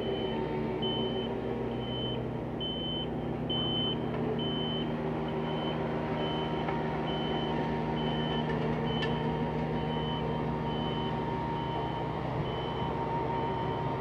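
Backup alarm on construction machinery beeping about once a second, over the steady running engines of asphalt paving equipment.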